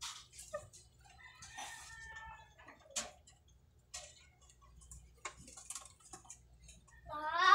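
A rooster crowing once, a long held call about a second in, with a few sharp clicks and knocks from pigeon cages being handled. A voice starts near the end.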